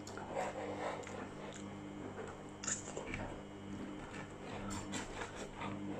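A person chewing and biting close to the microphone, eating egg and cheese on toast: soft, irregular mouth noises with a sharp click about halfway through.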